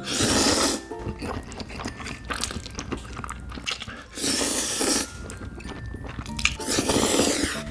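Mouthfuls of black-bean-sauce instant noodles (jjapagetti) slurped up loudly three times, right at the start, a little past four seconds in and near the end, with wet chewing between the slurps.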